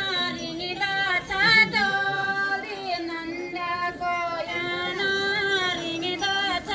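Women singing a Garhwali jagar folk song, in long held notes that bend up and down at their ends.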